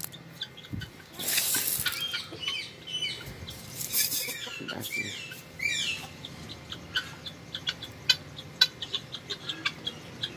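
Chickens calling, with several short falling calls in the middle, while they peck at scattered millet grain on a wet concrete floor, making a quick run of sharp taps in the second half. Two brief rustling bursts come in the first half.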